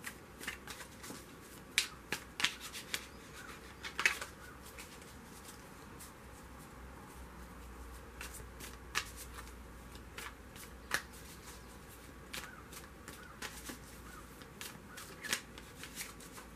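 A deck of tarot cards being shuffled by hand: irregular sharp card snaps and soft riffling, thickest in the first few seconds.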